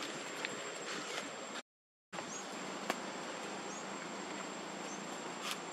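Steady outdoor hiss with a thin, constant high-pitched whine and a few short, faint chirps in the second half. The sound cuts out completely for about half a second after the first second and a half.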